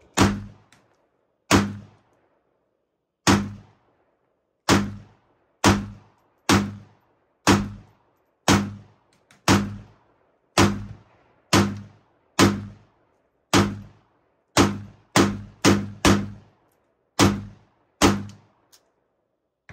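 Semi-automatic gunfire from a Draco AK-pattern pistol: about nineteen single shots, roughly one a second, coming faster a little past the middle.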